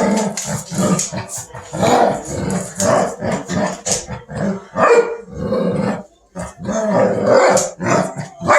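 Two dogs growling and snarling at each other in a rough tussle over a toy, in a run of short, loud, rough bursts that barely let up.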